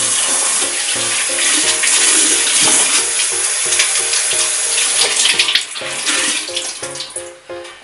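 Kitchen tap running into a sink while dishes are washed under it; the running water fades out about five and a half seconds in.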